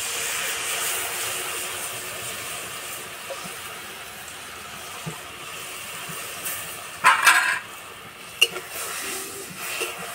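Watery mustard-paste mixture poured into hot mustard oil in a karahi, hissing and sizzling as it hits the oil, loudest at first and slowly settling. About seven seconds in, a brief, louder scrape as the spatula scrapes out the bowl.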